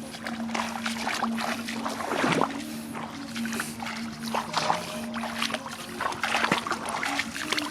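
Water splashing and trickling in short irregular bursts, over background music with a held low note.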